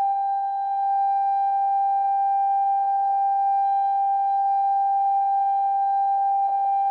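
Electronic siren of a municipal disaster-prevention broadcast loudspeaker: one steady high tone held without changing pitch.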